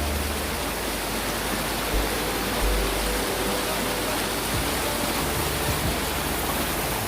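Floodwater rushing in a steady, loud, continuous wash of noise.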